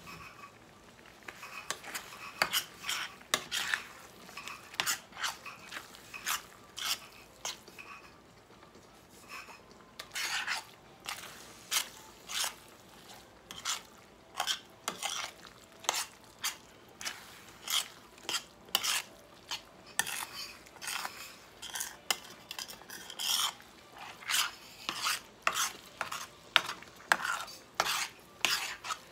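A spoon stirring and scraping a thick mixture in a large stainless-steel skillet, a series of short scrapes and clinks against the pan, about one or two a second, with a brief lull about a third of the way in.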